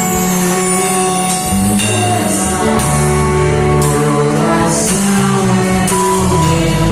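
Live worship band playing a song, with guitar, bass and drums, cymbal crashes now and then, and singing.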